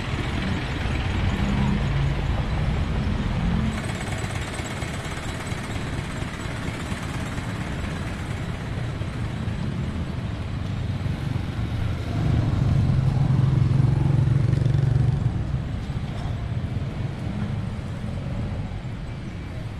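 Passing motor vehicle traffic: a steady engine-and-road rumble, with one vehicle's engine getting louder about twelve seconds in and fading again a few seconds later.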